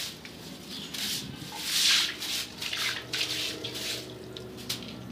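Water being splashed and swished over stair steps as they are washed down: a series of irregular wet swishes, the loudest about two seconds in.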